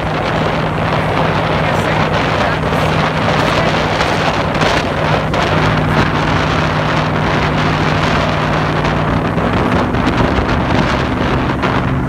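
Power boat's engine running under way, a steady drone, under heavy wind noise buffeting the microphone. About halfway through, a second, higher engine tone joins in.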